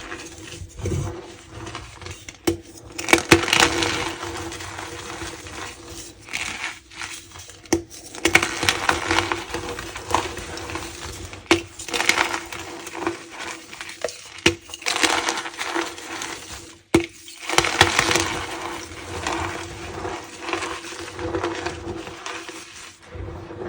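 Blocks of gym chalk being crushed and crumbled by hand: irregular bunches of crunching with sharp cracks and clinks between them.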